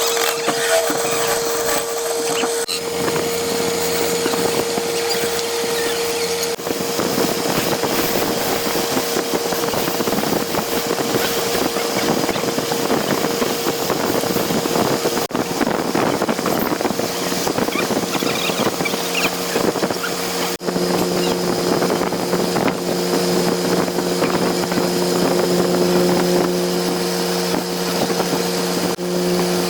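Woodturning lathe running steadily, its motor humming under the rough noise of a tool cutting the spinning wood. The sound changes abruptly several times.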